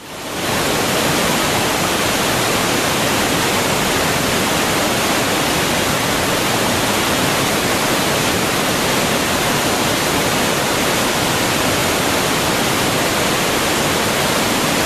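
A river in spring flood rushing past: a steady, even sound of fast water.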